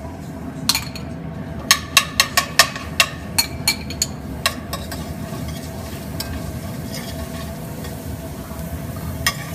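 Chopped garlic sizzling in olive oil in a stainless steel sauté pan, the oil kept not too hot so the garlic won't burn, while a metal utensil stirs it. The utensil clinks and scrapes against the pan, with a quick run of about ten clinks in the first few seconds and only occasional ones after.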